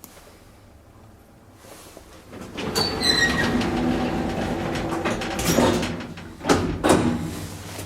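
KONE M-series elevator in operation: a rumbling mechanical noise with some squeal in it builds up about two and a half seconds in and runs on, with two sharp clunks near the end.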